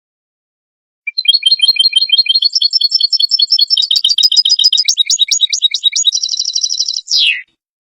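European goldfinch singing: one fast run of twittering notes lasting about six seconds, starting about a second in and ending with a quick falling note.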